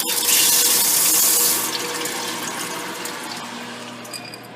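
Popcorn kernels tipped into the hot oil in a popcorn machine's kettle: a loud sizzling hiss that is strongest for the first second and a half and then dies away, over the machine's faint steady hum.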